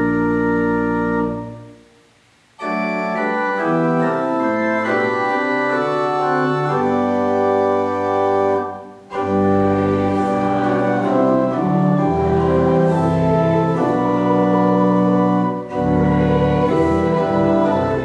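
Church organ playing sustained chords: a held chord stops about a second in and dies away in the room's echo, then new music starts about two and a half seconds in, moving from chord to chord with two short breaks between phrases.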